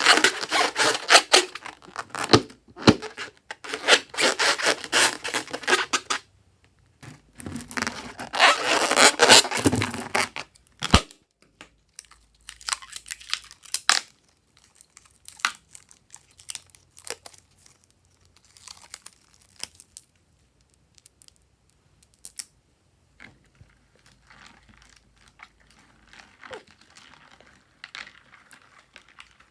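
Close crinkling and crackling handling noise from slime-making materials, in two long stretches over the first ten seconds, then scattered light clicks and soft rustling.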